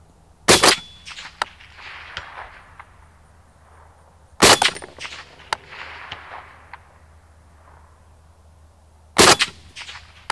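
Three suppressed rifle shots about four seconds apart from a Springfield Armory M1A Loaded in .308 Winchester fitted with an AAC SDN-6 suppressor. Each is a sharp report followed by a short echo.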